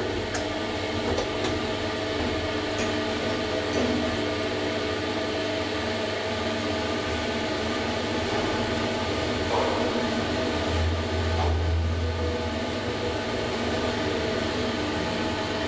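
SMW traction elevator car travelling, heard from inside the car: a steady hum of the drive and ride, with a few faint clicks in the first few seconds and a short low rumble about eleven seconds in.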